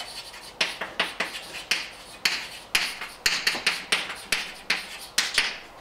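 Chalk writing on a blackboard: a quick run of sharp taps and short scratches, about four a second, starting about half a second in.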